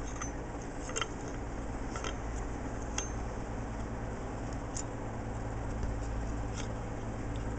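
A handful of light metal clicks and clinks, roughly a second apart, as a bolt is tightened with an Allen wrench on a BMX sprocket and crank arm. A steady low hum runs underneath.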